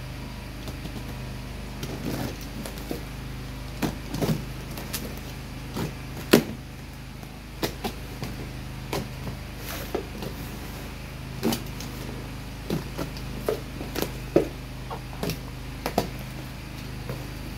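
Box cutter slitting packing tape and scraping across a cardboard parcel: short, sharp, irregular scrapes and taps, about one or two a second. A steady low hum of a generator runs underneath.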